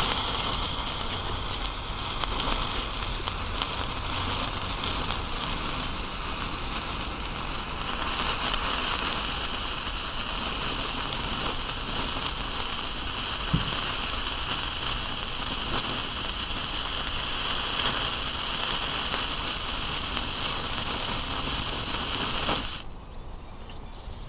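Red falling-leaf firework fuse burning down after ignition: a loud flare as it lights, then a steady fizzing hiss that stops about a second and a half before the end as the fuse burns out.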